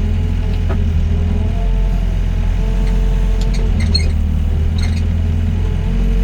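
Doosan DX55 mini excavator's diesel engine running steadily under working load while levelling soil, with a faint whine that shifts in pitch as the hydraulics move the arm. A few light clicks come between about three and a half and five seconds in.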